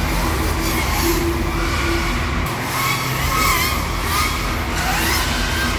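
FPV racing drones' motors whining, the pitch rising and falling several times as the pilots throttle up and down, over a steady background din.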